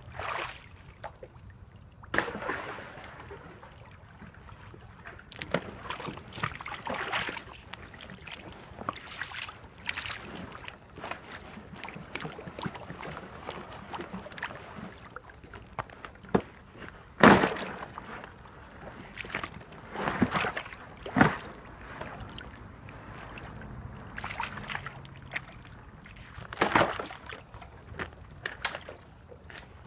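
Thin ice on a shallow creek cracking and crunching under boots as it is stepped through, in about ten irregular sharp breaks, with water sloshing beneath. The loudest crack comes a little past the middle.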